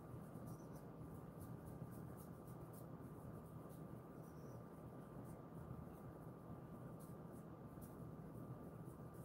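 Faint scratchy rustle of hands rubbing and kneading a dog's fur, over a steady low hum with a thin high whine.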